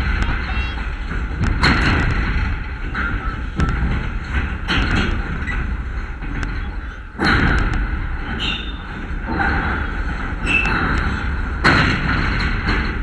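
Wind buffeting an outdoor camera microphone, a steady low rumble broken by several sudden thumps and gusts, the strongest about seven seconds in.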